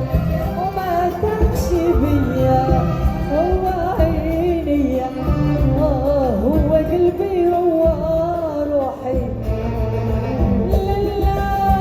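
Live Moroccan band music: an ornamented, wavering melody line over bass and percussion.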